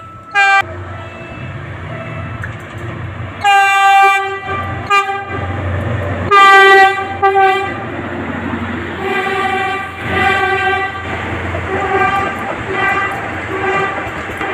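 Philippine National Railways train sounding its horn as it passes, over a low rumble. Two long blasts come a few seconds in, then a string of shorter repeated toots follows.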